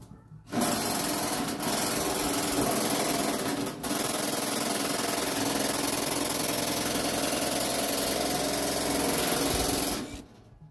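A power tool running steadily for about nine seconds, with one short break about four seconds in.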